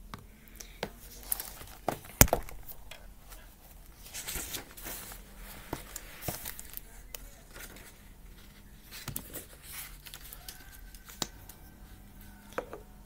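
Paper pages of a book being turned: rustling and crinkling of paper with scattered clicks and taps of handling, the sharpest click about two seconds in.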